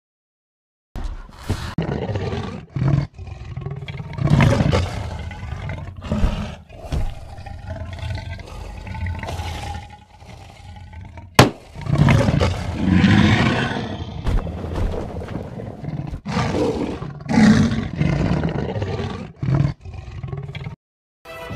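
Big cat growling and roaring again and again in rough, drawn-out bursts with short gaps, starting after about a second of silence. A single sharp crack comes about eleven seconds in.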